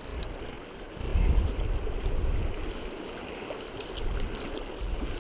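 Fast river current rushing over rocks close by. Gusts of wind buffet the microphone about a second in and again near the end.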